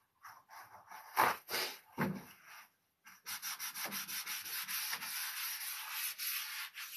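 Shop towel rubbed by hand over the painted side of a cedar chest, wiping off excess dark wax. First a few scattered strokes and two soft knocks about one and two seconds in, then fast, even back-and-forth rubbing.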